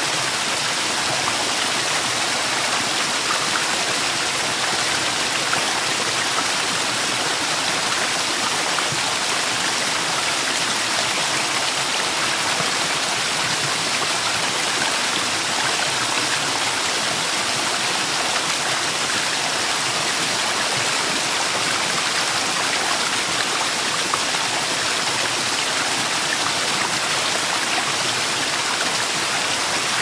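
Flowing water rushing steadily, an even hiss that never breaks or changes.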